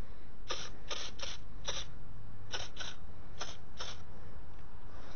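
Adams IK pump-up foam sprayer giving short trigger bursts of spray into a wheel barrel, about nine quick bursts in the first four seconds, over a steady low rumble.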